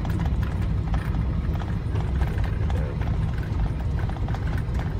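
Steady low rumble inside a vehicle's cabin while driving on a snow-covered road, with a rapid, continuous clatter of clicks.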